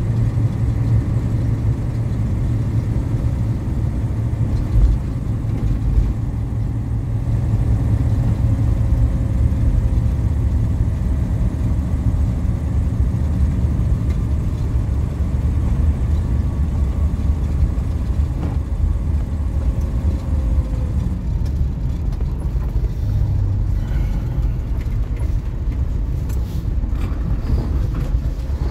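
Steady engine and road rumble heard from inside a truck cab while driving, with a faint whine that drifts slowly in pitch.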